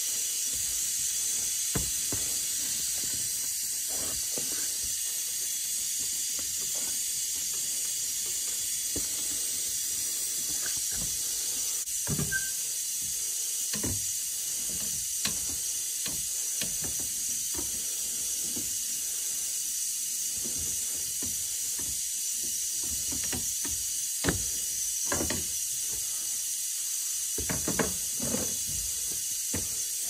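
A steady high hiss with scattered light knocks and clicks a few seconds apart, a small cluster near the end, from hand tools working on metal transmission cooler lines and their crimped rubber hoses.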